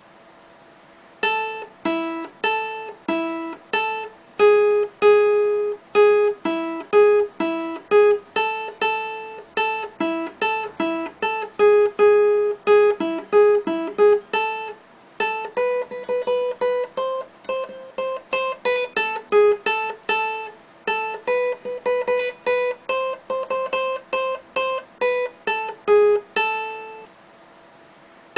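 Background music: a simple melody of single plucked-string notes at a lively, steady pace, pausing briefly about halfway and again near the end.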